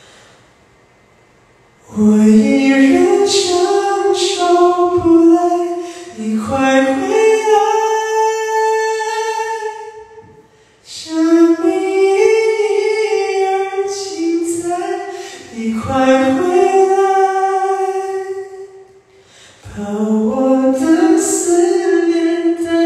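A man singing a cappella into a handheld microphone in a tenor range, with no accompaniment. He sings several long melodic phrases, starting about two seconds in, with short breaks for breath between them.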